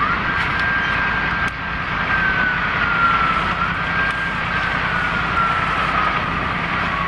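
Police siren wailing: one tone that climbs quickly at the start, holds, dips and climbs back about halfway through, then slowly falls, over a steady rushing noise.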